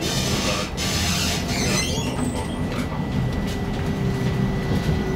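Stockholm A35 tram running, heard from inside the passenger cabin: a steady low rumble of wheels and drive. A high hiss fades out about two seconds in, and a steady tone sets in about a second later.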